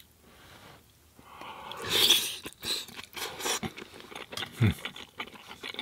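Close-miked chewing of a mouthful of penne pasta with vegan sausage: wet mouth clicks and smacks. A louder noisy slurp comes about two seconds in, and a short falling hum near the end.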